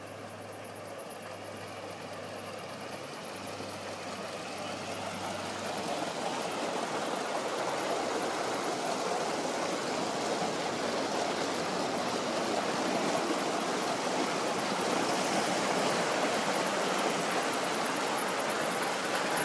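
A 1/30th scale Gauge 1 live steam locomotive running on the track, a steady rushing sound that grows louder over the first several seconds as it approaches, then holds.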